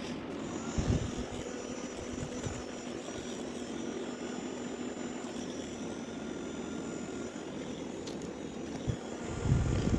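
Mini portable fan running: a steady whir of its small motor and blades. A couple of low thumps come about a second in and near the end.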